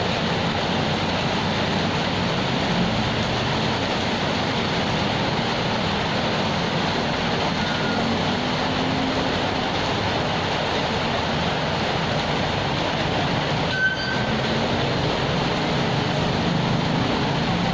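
Steady rainfall, an even hiss. There is one brief click about three quarters of the way through.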